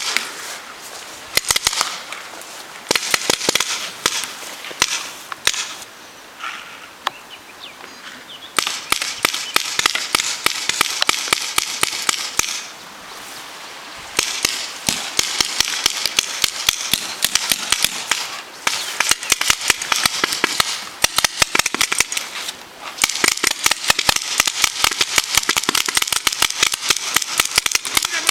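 Paintball markers firing: scattered single pops at first, then, from about eight seconds in, dense rapid volleys from several guns at once, broken by a few short lulls.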